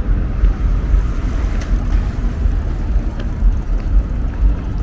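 Outdoor city street ambience: a steady low rumble of road traffic.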